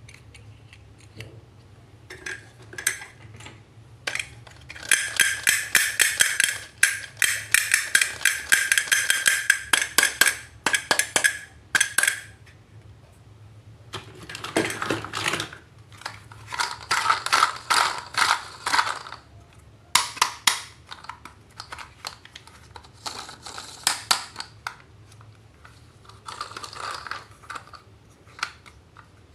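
Small plastic toys and their packaging being handled: a series of sharp clicks and rattles, with a busy stretch of rapid clicking in the first half and stretches of crinkly rustling later on.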